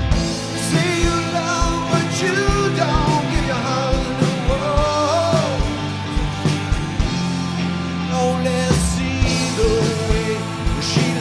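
Live rock band playing, with drum kit, bass and electric guitars, through an instrumental passage. A melodic lead line bends and wavers above a steady beat.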